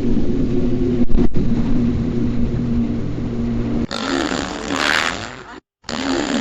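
Fart sound effects. A long, low, buzzing fart runs for about four seconds, with two very short breaks about a second in. Then come two shorter, airier farts with a hissing edge, separated by a brief pause.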